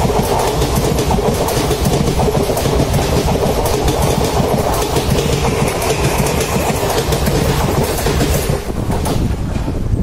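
Loud rumble and clatter of a passing passenger train's coaches rushing by alongside a moving train, with wheels clicking over rail joints, heard through an open coach door. The passing rush cuts off about nine seconds in, leaving the quieter running of the train itself.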